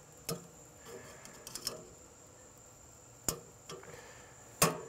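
Metal tongs clicking and clacking against a grill grate as chicken pieces are shifted about, about half a dozen sharp clicks with the loudest near the end. A steady high insect trill runs underneath.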